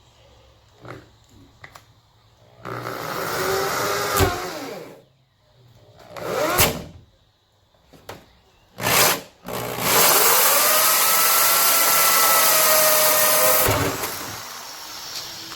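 Power drill driving a hole saw into a fiberglass car hood, run in a few bursts of a second or two and then one steady run of about four seconds.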